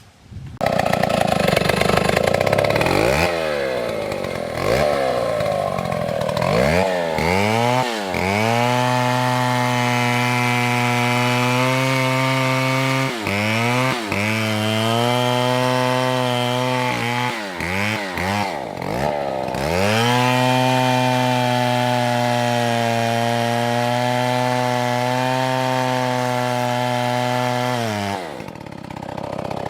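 Chainsaw engine revving up in a few bursts, then running at full speed while cutting a tree. Its pitch sags briefly a few times under load before the saw drops off near the end.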